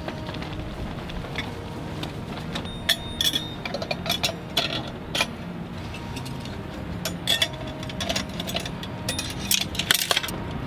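Glass globe and metal frame of a Coleman Northern Nova gas lantern being fitted into place: a scatter of light clicks and clinks of glass and metal, several in quick succession, the sharpest near the end as the top cap is pressed on.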